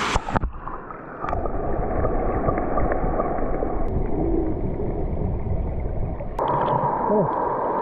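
River water rushing and gurgling, heard muffled as if from underwater: after a knock about half a second in, the high end drops away and a dull, dense rumble continues.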